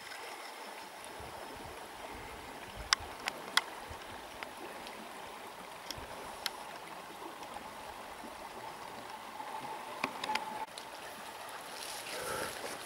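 A taiga river rushing steadily, with a few short sharp clicks scattered through.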